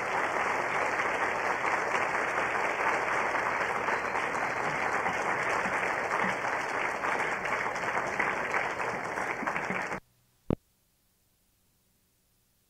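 Audience applauding, a dense steady clatter that cuts off abruptly about ten seconds in. A single short click follows about half a second later, then only a faint low hum.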